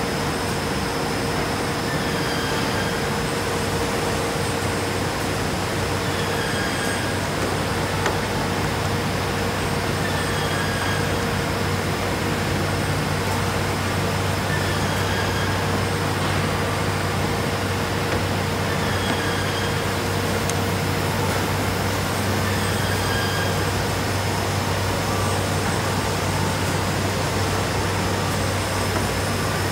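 Costa wide belt sanding line (2005, 52-inch KBH machines) running, a loud steady industrial drone with a constant hum. A short, faint, high chirp repeats about every two seconds over it.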